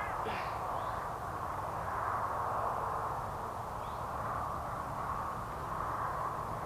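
Steady outdoor background noise with a low rumble, and two faint short calls, one about half a second in and one about four seconds in.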